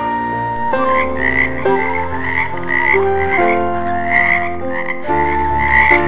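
Frogs croaking in a chorus of short repeated calls, starting about a second in, over background music of sustained instrumental notes.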